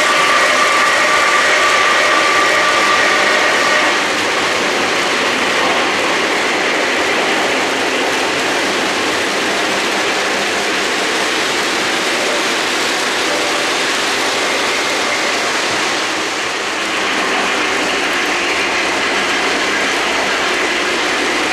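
Three-rail O-gauge model trains running on the layout track, a steady clatter and rattle of wheels and running gear. A held high tone sounds over it for the first four seconds.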